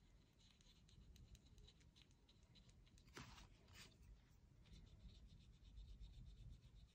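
Faint, quick strokes of a watercolour brush pen's tip on card, the pen being drawn back and forth to colour a stamped flower. There are two louder scrapes a little after three seconds in.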